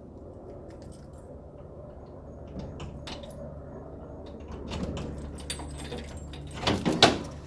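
Metal clicking and rattling as a lawn mower is handled and moved, ending in a louder clatter near the end, over a steady low hum.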